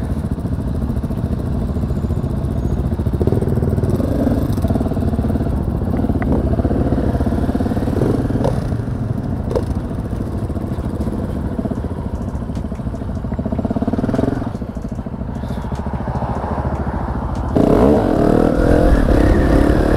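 Supermoto motorcycle engine running at idle. Near the end it suddenly gets louder and rises in pitch as the bike is revved and pulls away.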